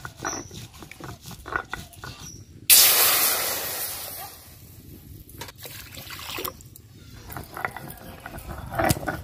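Stone pestle rolled back and forth on a flat grinding stone (shil-nora), grinding chillies into paste in repeated scraping strokes. About three seconds in, water poured into a hot wok hisses loudly with steam and dies away over a second or so, then the grinding strokes go on.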